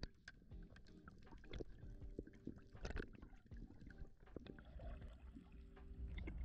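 Faint underwater sound: water moving and bubbling around the camera, with scattered clicks and a low steady hum underneath.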